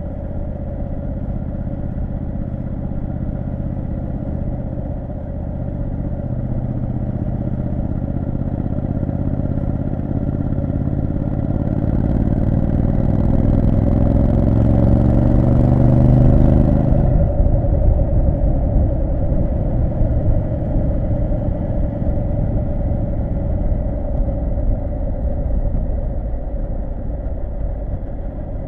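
Triumph Street Scrambler 900's 900 cc parallel-twin engine pulling under acceleration, its pitch rising for about ten seconds. About seventeen seconds in, the throttle comes off sharply and the engine runs on at lower revs.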